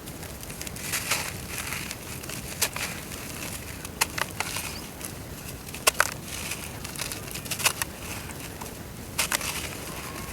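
Dry, crunchy brown dirt crumbling in water: a steady soft crackle with scattered sharp cracks and pops every second or two.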